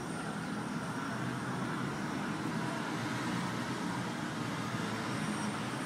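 Steady road and tyre noise heard inside the cabin of a Bolloré Bluecar electric car driving along a city street, with no engine note.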